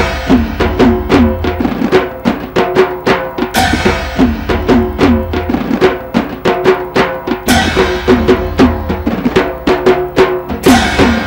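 Instrumental lead-in to a devotional gajar chant: a fast, dense drum rhythm with low strokes that drop in pitch, and a bright crash about every four seconds.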